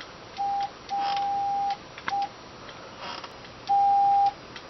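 Morse code from a ham radio keyed by a straight key through a wireless keyer: a steady single-pitched beep sounding short and long elements (a short one, a long one, a short one, then a long, louder one near the end), with light clicks around the key strokes. It is a goodbye being sent in Morse.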